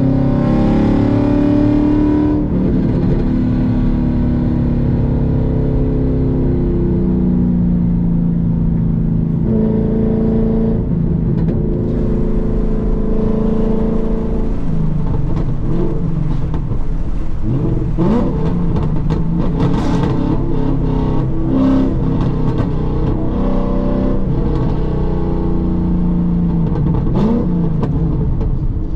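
Ford Mustang Boss 302's 5.0-litre V8 running through replacement aluminized-steel side pipes while driving. Its pitch rises and falls repeatedly as it accelerates, lifts and shifts, with a run of short sharp pops in the second half.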